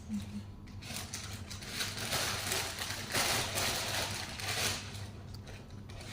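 Crackling, crunching eating noises close to the microphone, loudest in the middle, as McDonald's food is eaten.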